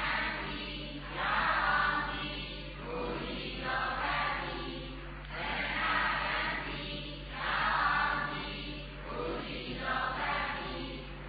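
A congregation of many voices reciting a verse together in unison in Burmese, repeating it after the monk, in phrases that swell and fade about every two seconds.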